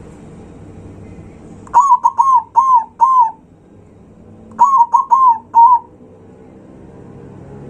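Zebra dove (perkutut) cooing: two loud phrases of four quick, clipped coos each, the second phrase coming about a second after the first.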